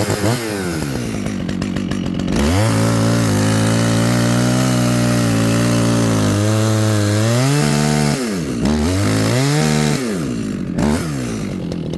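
Dolmar two-stroke chainsaw with a new, sharp Oregon chain revved to full throttle and cutting through a tree, the engine note holding steady through the cut. Near the end the throttle is blipped a few times before the saw drops back toward idle.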